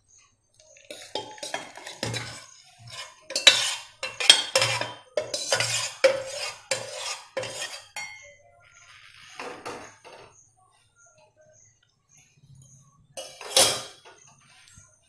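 Metal spoon scraping and clinking against a metal pot as thick kheer is poured and scraped out into a metal bowl. A busy run of scrapes and clinks for the first several seconds, then a lull, then one last loud clink near the end.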